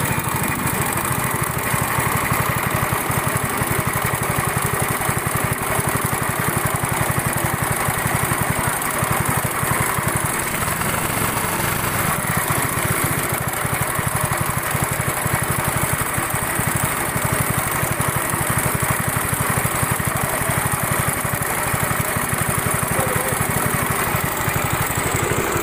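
Honda boat engine of a wooden river boat running steadily under way, a fast, even stream of firing pulses.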